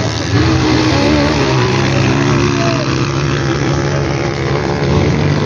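Several motocross dirt bike engines revving as the riders race through the track, the pitch rising and falling as they work the throttle.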